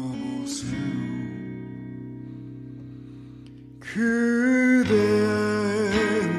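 A man singing to his own steel-string acoustic guitar. A chord strummed about half a second in rings out and fades. About four seconds in, his voice comes back in louder with long, wavering held notes over strummed chords.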